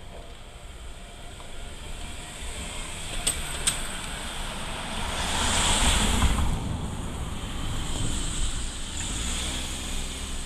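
Road traffic passing over a railway level crossing: two sharp clacks a little over three seconds in, then a rushing sound that swells to its loudest around the middle and fades away.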